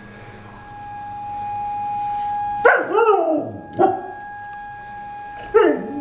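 Australian shepherd howling along with an outdoor tornado warning siren: three howls, each falling in pitch, the first the longest and loudest, the last about two seconds later. The siren's steady wail runs underneath, swelling slightly in loudness.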